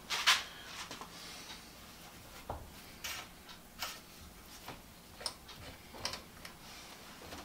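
Scattered small clicks and taps, about ten at irregular intervals, as a motor arbor and its parts are handled on a workbench.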